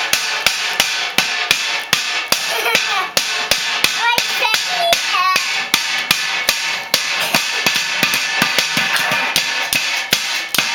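Children banging something hard, over and over: fast, irregular strikes, several a second, with a young child's high voice calling out among them.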